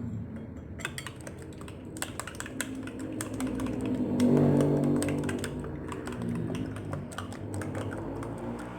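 Raw eggs being beaten in a bowl: a utensil clicks against the bowl in rapid, irregular strokes.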